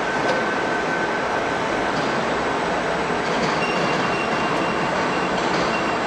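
Cable tray roll forming machine running as steel strip feeds off the coil over the roller table into its levelling rollers: a steady mechanical running noise, with a faint high whine in the second half.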